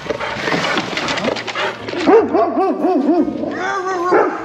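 Black Labrador barking and whining at a person in an inflatable dinosaur costume. About two seconds in comes a rapid run of short yelping calls, about four a second, after a stretch of scuffling noise.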